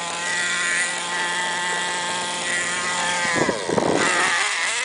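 Redcat Volcano S30 RC monster truck's motor running at a steady high whine, which dips in pitch a little over three seconds in and gives way to about a second of rough, wavering revving.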